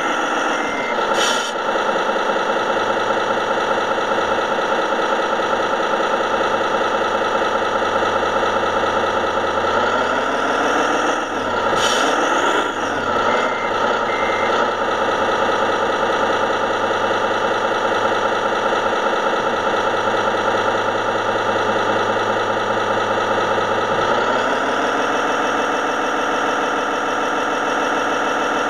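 Electronic diesel-engine sound from a radio-controlled model wheel loader's sound module, running steadily. Its pitch dips about a second in, rises and wavers around the middle as the engine is revved, and rises again near the end to a higher steady note.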